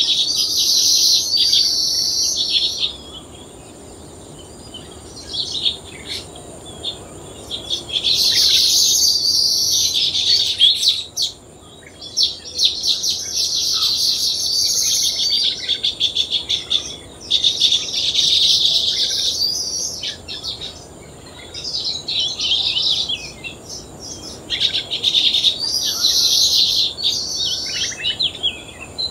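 Weaver birds calling in bursts of rapid chattering a few seconds long, one after another with short gaps, over a faint steady high tone.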